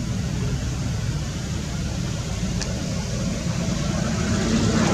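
Steady low rumbling background noise with a single faint tick about two and a half seconds in.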